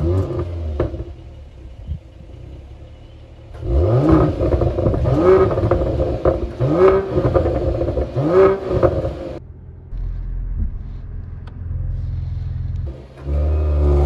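Mercedes-AMG GLE 53's 3.0-litre turbocharged inline six flares up and settles to idle. It is then blipped four times in quick succession, each rev rising and falling in pitch. After that it idles again, with one more rev near the end.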